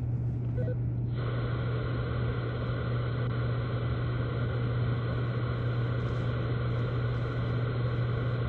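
Steady static hiss from a receiving FM two-way radio, cutting in about a second in while the walkie-talkie transmits, over a steady low hum.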